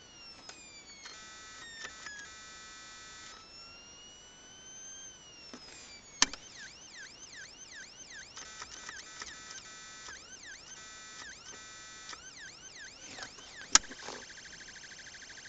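Whelen siren amplifier sounding through its built-in speaker, switching between siren tones: a slow rising and falling wail, a stepped chopped tone, then fast repeating yelp sweeps, and a rapid warble near the end. Two sharp, loud clicks, about six seconds in and near the end, come as the tones change.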